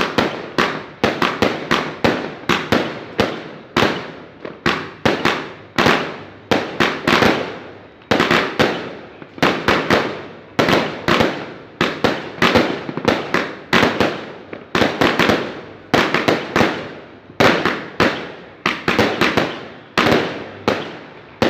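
Fireworks and firecrackers going off in a continuous barrage: sharp bangs about two or three a second, overlapping, each trailing off in an echo.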